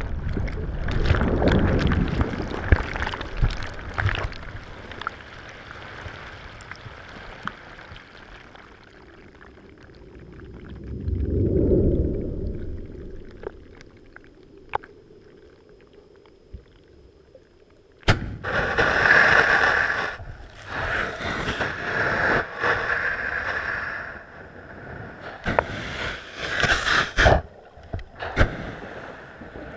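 Muffled sound of seawater heard from inside a GoPro's waterproof housing as it drifts underwater near a sandy seabed. Surges of low rumbling water die down to a quiet stretch. About two-thirds of the way in, the sound changes abruptly to louder rushing and sloshing in repeated surges, with a few sharp knocks.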